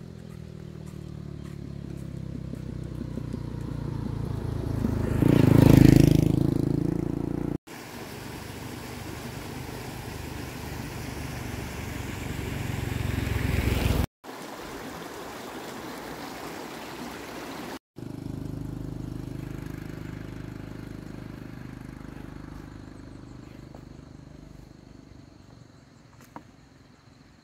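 A small engine running; it grows louder to a peak about six seconds in, then carries on steadily and fades toward the end. The sound cuts out abruptly and resumes three times.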